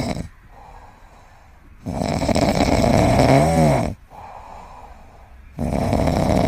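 Loud snoring: long drawn snores about every four seconds, with quieter breaths between. The middle snore ends in a wobbling, pitched note.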